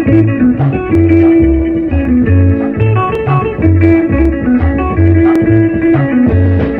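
Background instrumental music: guitar over a repeating bass line.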